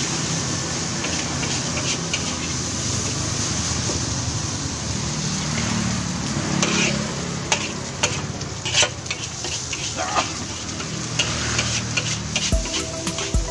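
Fried rice sizzling in a large metal wok while a metal spatula stirs and tosses it, with sharp clinks and scrapes of the spatula on the wok, more frequent in the second half. Music comes in near the end.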